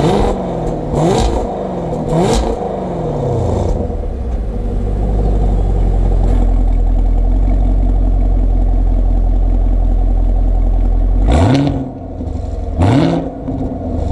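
2020 Chevrolet Camaro SS's 6.2-litre LT1 pushrod V8, heard from behind at the quad exhaust tips with the active exhaust in Track Mode. Three quick throttle blips, each rising and falling, settle into a steady idle, and the revving starts again near the end.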